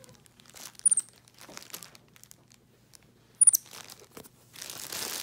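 Plastic packaging crinkling and tearing in short bursts as a capuchin monkey pulls and picks at it, denser near the end. Two brief high-pitched squeaks stand out, about a second in and again a little past the middle.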